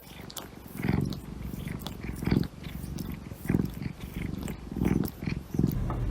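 Domestic cat purring close to the microphone, in low pulses about once a second.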